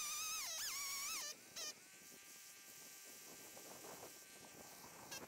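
Background music: a thin, whistle-like lead melody with wavering pitch slides that breaks off about a second and a half in, leaving a faint held tone and soft hiss until the melody comes back right at the end.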